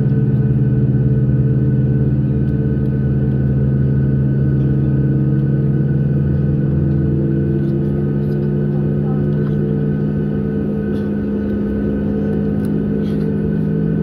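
Cabin sound of a Boeing 737 MAX 8 taxiing: a steady engine hum from its CFM LEAP-1B turbofans at low thrust, with several held tones over a low rumble.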